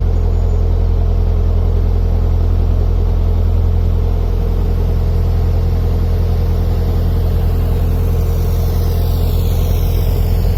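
Narrowboat's diesel engine running at steady cruising revs, a constant low drone.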